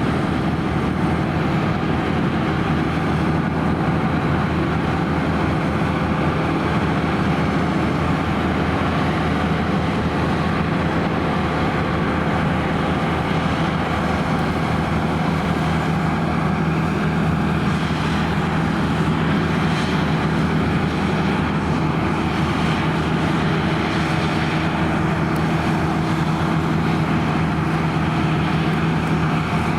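Claas Lexion 580 Terra-Trac combine harvester running steadily while combining barley: a constant, even machine drone with a low steady hum.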